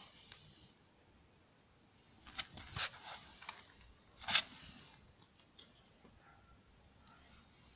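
Handling noise: a cluster of sharp clicks and crackles about two and a half seconds in, then a louder crackle a little after four seconds as a hand pats a sleeping cat lying on a woven plastic sack.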